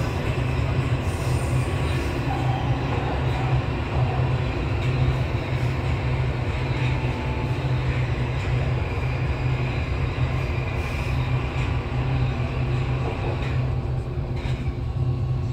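Budapest M4 metro train (Alstom Metropolis) running through a tunnel, heard from inside the front car: a steady, loud rumble of wheels on rail and running gear. It eases a little near the end as the train pulls into a station.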